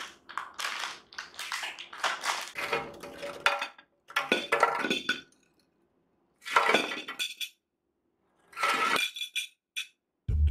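Air-fried sweet potato balls tumbling from an air-fryer basket onto a ceramic plate: hard clinking and clattering knocks, dense at first and then in a few separate bursts with pauses between. The hard knocks are a sign of the balls' crisp crust.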